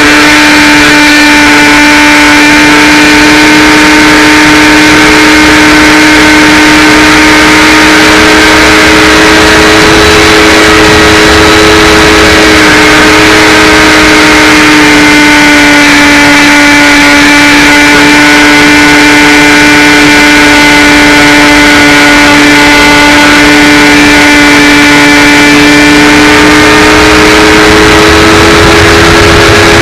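Electric motor and propeller of a HawkSky RC glider running steadily: a loud, continuous whine whose pitch sags a little midway and rises again near the end, over a rush of wind noise.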